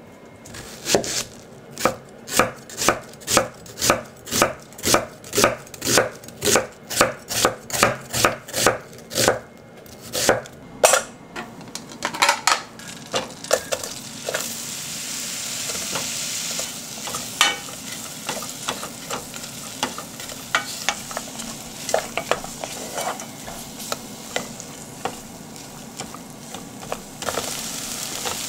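Kitchen knife slicing an onion on a wooden cutting board, even strokes about two a second for some ten seconds. Then butter and sliced onion sizzling in a pot, stirred now and then with a wooden spatula, the sizzle getting louder near the end as broccoli is tipped in.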